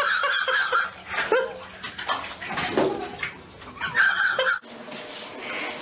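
Water splashing in a filled bathtub, with a few short cries in between.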